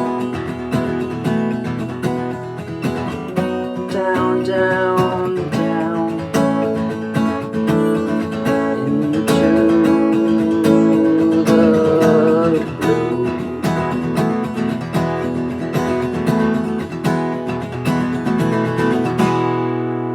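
Strummed acoustic guitar playing a song's instrumental outro, with a wavering melody line over the chords. Near the end the playing stops on a final chord that rings on and fades.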